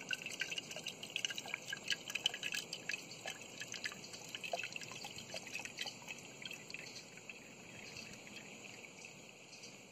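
Coconut water trickling from the cut-open top of a green coconut into a drinking glass, with many small drips and splashes. The drips thin out after about six seconds as the coconut runs dry.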